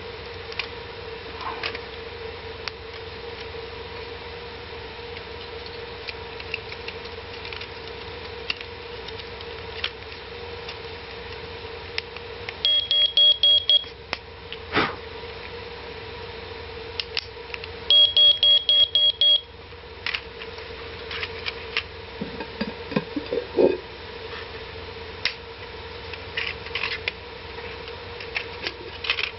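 Smoke detector's piezo sounder giving two short bursts of rapid high beeps about five seconds apart, as when its test button is pressed to check the circuit. A steady low hum and scattered light clicks run underneath.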